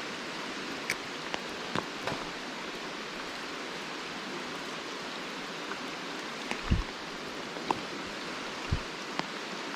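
Steady hiss of rain and flowing river water, with a handful of sharp taps and a few low thumps scattered through, the loudest about two-thirds of the way in.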